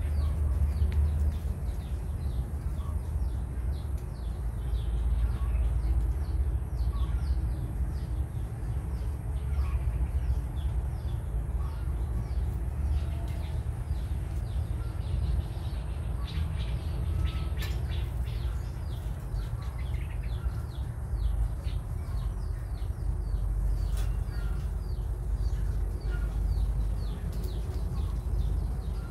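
Small birds chirping over and over, busiest in the middle, against a steady low rumble.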